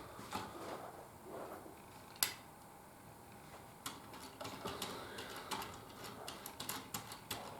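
Faint clicking of plastic building-brick parts being handled and worked: one sharp click about two seconds in, then a run of small, irregular clicks from about four seconds on.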